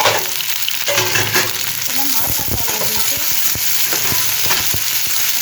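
Garlic and red chillies frying in hot oil in a pan, with a steady sizzling hiss and the repeated scrape and click of a utensil stirring them.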